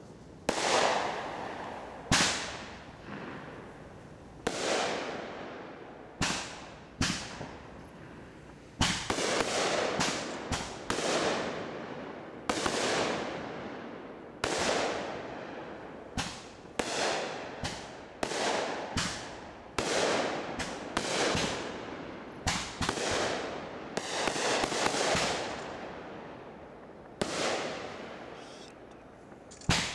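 Aerial fireworks bursting overhead one after another, each a sharp bang that trails off. The bangs come a couple of seconds apart at first, then quicken from about nine seconds in to roughly one a second or faster.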